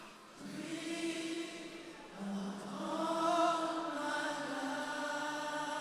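A congregation singing a slow worship chorus unaccompanied. Many voices hold long notes, and the tune moves to a new note about two seconds in.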